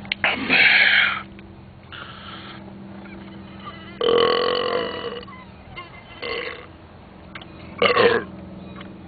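A person belching several times: three loud burps, the longest about four seconds in and another near the end, with two smaller ones between them.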